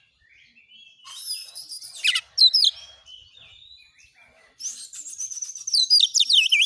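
Oriental magpie-robin (kacer) singing rapid bursts of high, sweeping and falling notes. Two loud phrases, about a second in and again from the middle to the end, with softer twittering between them.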